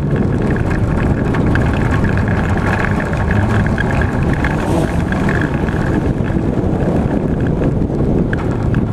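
Onboard sound of a Daihatsu Charade G102's 1.3-litre engine running steadily under load as the autocross car drives a dirt track, with heavy tyre and wind noise.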